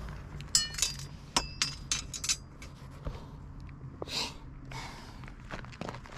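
Steel straightedge clinking, with a short metallic ring on the first strikes, then a string of sharp clicks and a brief scrape as it and the measuring tools are handled over the clay backing block.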